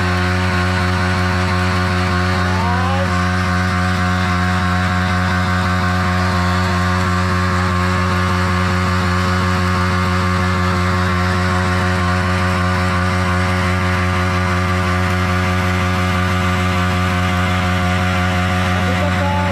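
Yamaha MT-15's 155 cc single-cylinder engine held at high, steady revs during a burnout, spinning the rear tyre while the bike is held in place.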